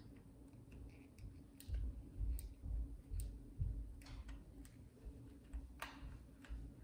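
Small Phillips screws being worked out of the plastic back of a Dropcam Pro: faint, irregular clicks and ticks of driver and screw on plastic, with dull low bumps from handling the camera between about two and four seconds in.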